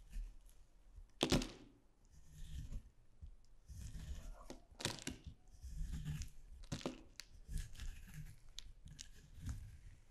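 Metal knife digging and scraping through a bowl of packed, crumbly pink powder, the chunks breaking apart in a series of crunches; the sharpest crunch comes about a second in, with several more after.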